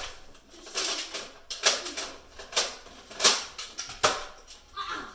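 Nerf blaster firing foam darts, about five sharp pops a second or less apart, the loudest about three seconds in.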